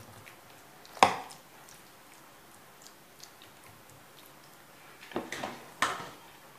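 Metal ladle spooning bolognese meat sauce onto a lasagne layer in a stainless steel pan, knocking against the metal: one sharp clank about a second in, and two or three more knocks near the end.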